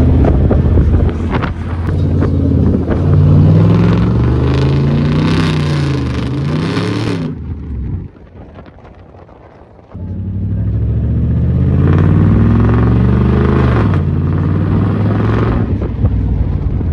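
Chevy Silverado pickup's engine pulling hard through the gears, its pitch climbing and dropping back at each upshift, over tyre and wind noise from a camera mounted low on the truck's side. About eight seconds in it goes much quieter for two seconds, then pulls up through the gears again.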